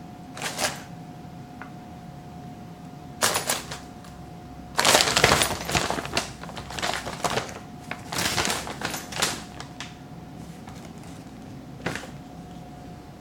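Paper bag crinkling and rustling in irregular bursts as a cat moves and paws against it, busiest and loudest from about five to nine seconds in.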